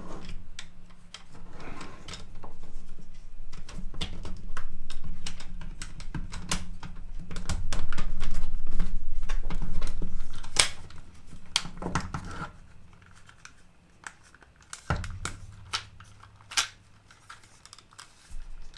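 Plastic housing parts of a cordless screwdriver being handled and pressed together: a run of irregular clicks, knocks and rustles, busiest in the first two thirds and sparser near the end.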